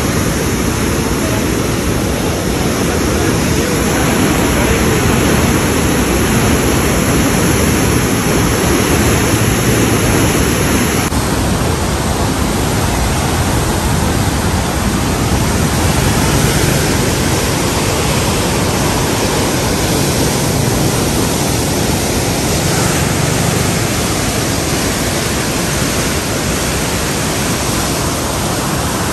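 Floodwater pouring through the open gates of a river barrage and churning below it, a loud steady rushing noise from a river in high flood. Its tone shifts abruptly twice, a few seconds in and again about a third of the way through.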